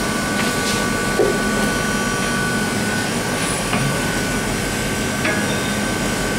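Steady running noise of a gas-fired tilting cooking mixer: a hum with a faint high whine, with a few light metal clicks as its stirring paddle is handled.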